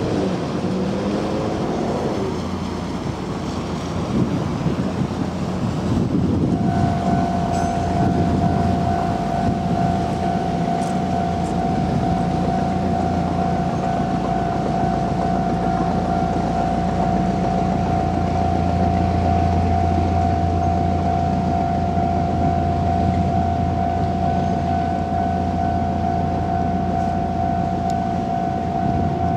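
A railway level crossing's warning alarm starts about six seconds in and sounds steadily as one held tone. Under it, the low rumble of traffic on the freight line swells in the middle of the stretch.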